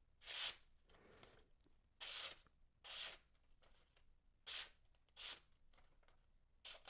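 Knife blade drawn in six short, scratchy strokes, each about half a second long and spaced unevenly.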